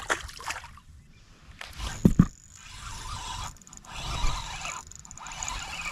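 A released crappie splashing back into the water, then a sharp knock about two seconds in, the loudest sound, and a steady hiss through the rest.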